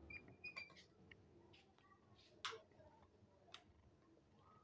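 Near silence, broken by a few faint, short clicks.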